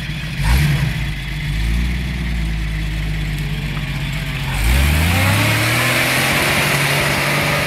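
Toyota Land Cruiser FJ60's inline-six engine pulling hard up a loose dirt slope. About halfway through the revs rise and a loud hiss of tyres spinning in dirt and gravel comes in and lasts to the end.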